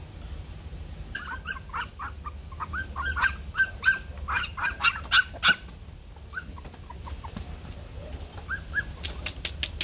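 Bắc Hà xù puppies yipping: a quick run of short, high yelps and squeals for about four seconds, then a couple more near the end, over a low steady hum. The puppies are hungry and waiting to be fed.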